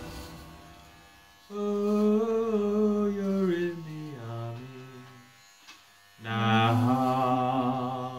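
A voice sings two long, chant-like held notes with a wobble in the pitch, the first sliding downward at its end and the second starting about six seconds in. The faint buzz of electric hair clippers runs underneath.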